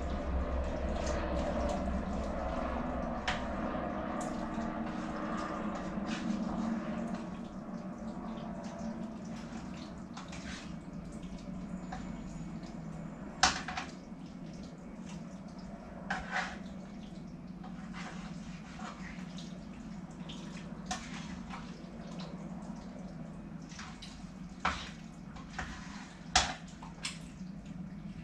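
Spoon stirring a pot of wet vegetable and bean casserole, the liquid sloshing, with occasional sharp knocks of the spoon against the pot; a loud knock about halfway through. A steady low hum runs underneath.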